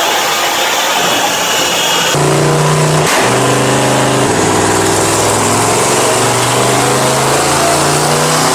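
Supercar engine running loudly: a higher whine for the first two seconds, then a deep, steady engine note that shifts pitch in steps.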